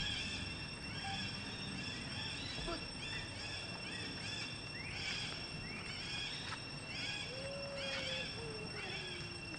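An animal giving short, arched calls over and over, about one and a half a second, over a steady high-pitched whine.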